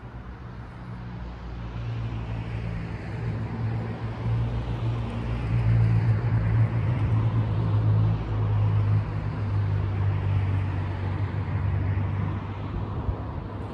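Low engine hum with road noise from a motor vehicle going by. It swells to a peak around the middle and then fades.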